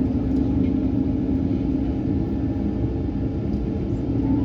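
Steady low rumble and hum inside the cabin of an Airbus A220 on the ground before takeoff, with a few held tones running through it. A faint higher tone comes in near the end.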